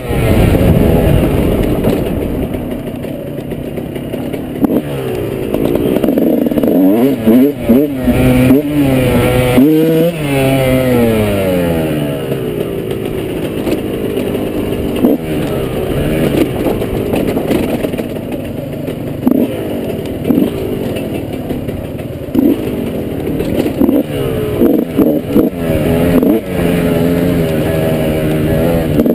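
Dirt bike engine revving up and down under way, its pitch rising and falling repeatedly, with a few brief knocks.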